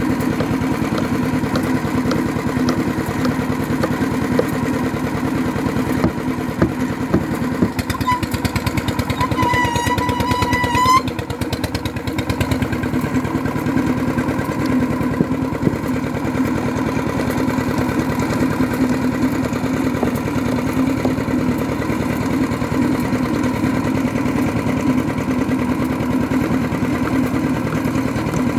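Engine of bored-pile drilling machinery running steadily. About eight seconds in, a high whistle-like tone wavers for roughly three seconds, then stops.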